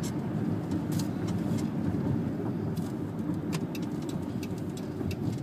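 Steady low road and engine rumble of a car heard from inside the cabin while driving, with a few faint ticks.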